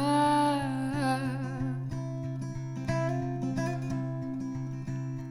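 Acoustic guitar picked between sung lines, with a held wordless vocal note over it in the first couple of seconds.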